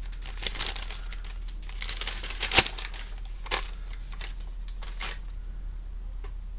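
Paper rustling and crinkling as a folded sheet is handled and unfolded, with a sharp paper snap about two and a half seconds in. The rustling dies away about five seconds in.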